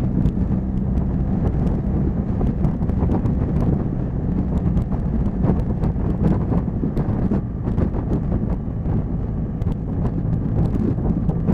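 Motorcycle engine running at a steady cruising speed, with wind rushing over the microphone and scattered sharp ticks throughout.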